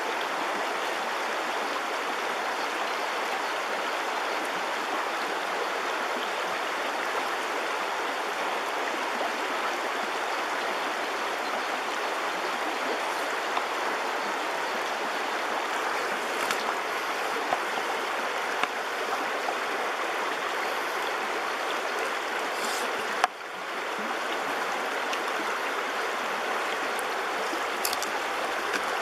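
Shallow rocky river running steadily over stones, a constant rushing of water. A few faint clicks sit on top of it, and one sharp click comes late on.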